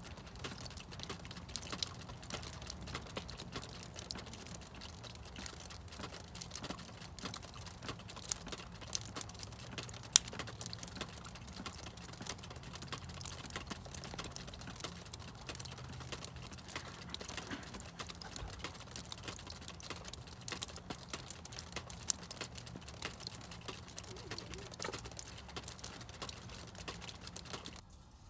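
Snowmelt water dripping and pattering: a dense, irregular run of small taps, with one sharper tap about ten seconds in. It stops abruptly near the end.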